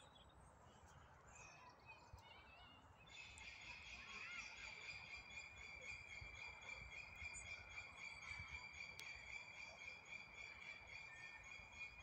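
Faint outdoor ambience with scattered bird chirps. About three seconds in, a steady high-pitched pulsing trill starts and keeps on.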